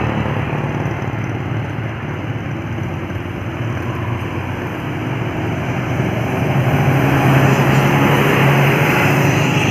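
Intercity bus engine running as the bus drives past on the road, with a steady low hum that grows louder about six and a half seconds in.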